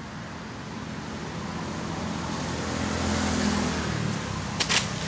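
A motor vehicle passing by, its engine sound swelling to a peak a little past the middle and then easing off, with a few sharp clicks near the end.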